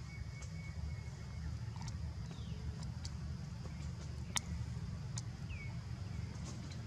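Outdoor background noise: a steady low rumble, with a few faint short falling chirps and several sharp clicks scattered through it.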